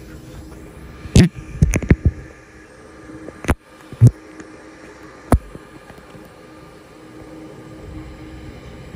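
Several sharp knocks over a steady low hum: a quick cluster about a second in, then three single knocks spread through the middle.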